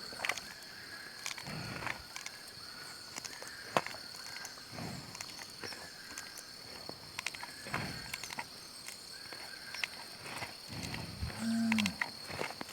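Cow chewing its cud, with many small clicking and grinding sounds and a low soft sound about every three seconds. Near the end a calf gives one short moo, the loudest sound.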